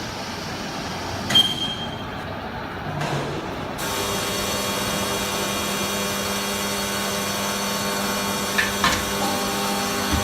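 Vertical cardboard baler's hydraulic power unit running with a steady machine hum that grows louder and fuller about four seconds in. A sharp metallic clank with a brief ring comes about a second in, and two more knocks come near the end.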